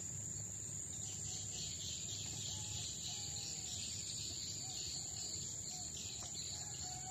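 Insects chirring in a steady, high-pitched drone, with a few short bird chirps below it and a low steady rumble underneath.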